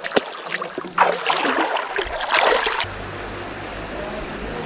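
River water splashing for about two seconds, starting about a second in and cutting off abruptly, after a single click near the start. A steady low rumble follows near the end.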